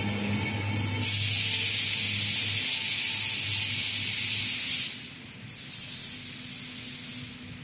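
Compressed air hissing at the sorting robot's pneumatic vacuum suction-cup gripper: a loud, steady hiss of about four seconds that stops sharply, then a second, softer hiss of about two seconds, over a low machine hum.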